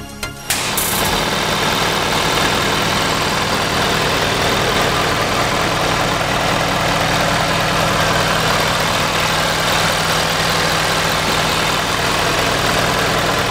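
Ford truck engine idling steadily. Music cuts off about half a second in.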